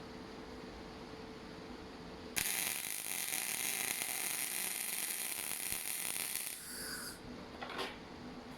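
Torros MIG 200 Pulse semi-automatic welder: the arc strikes suddenly about two seconds in and burns with a loud steady hiss for about four seconds as a bead is laid, then cuts off sharply.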